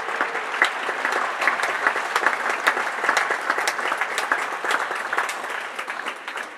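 Audience applauding: many hands clapping in a dense patter that dies down near the end.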